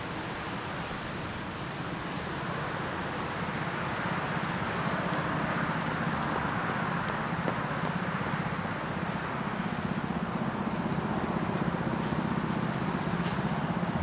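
Road traffic: a steady rush of passing vehicles with a low engine hum, swelling about five seconds in and again toward the end.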